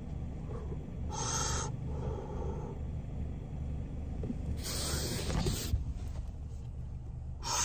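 Breathy rushes of a person drawing on a blunt and blowing out the smoke: a short one about a second in, a longer, louder one around five seconds, and a brief one near the end. Under them runs the steady low hum of the idling car.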